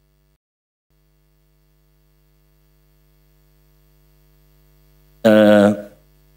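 Faint steady electrical mains hum in the microphone and PA line, broken about five seconds in by one short voiced syllable from the speaker lasting about half a second.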